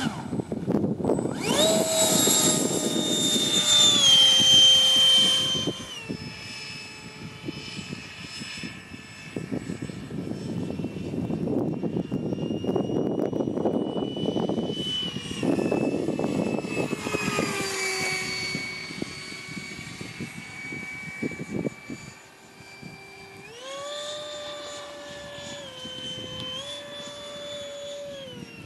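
Electric ducted fan of a 90 mm Starmax Alpha Jet RC model jet: a high whine that climbs sharply to full throttle about a second in for the takeoff run and stays loud for a few seconds, then carries on fainter as the jet flies, its pitch sliding and stepping up and down with the throttle and the passes.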